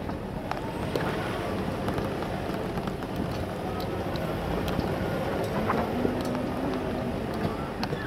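Off-road vehicle driving over a rough, rutted dirt track: a steady engine and tyre noise with scattered knocks and rattles from stones and the bouncing body.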